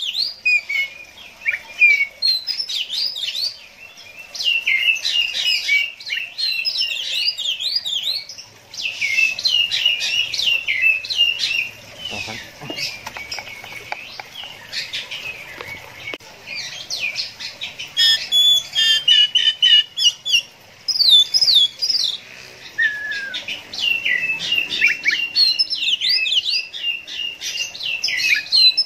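Oriental magpie-robin singing: fast, varied phrases of chirps and whistles, each run lasting a few seconds, with short pauses between them.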